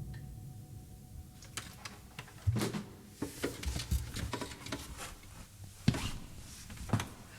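A few scattered knocks and clicks over a faint low hum in a small room.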